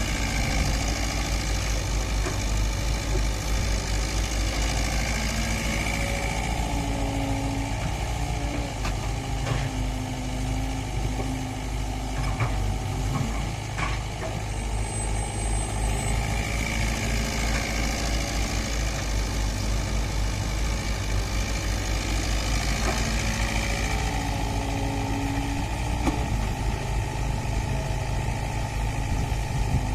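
Diesel engine of a working hydraulic excavator running steadily, with short pitched whines that come and go several times as the load changes and a few faint knocks.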